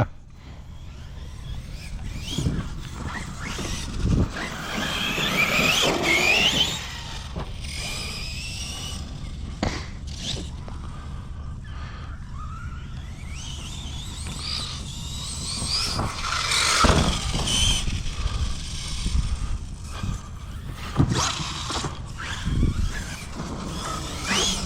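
Electric motors of large RC bashing trucks whining as they speed up and slow down, rising and falling in pitch, with several sharp thumps of the trucks landing or hitting the ground.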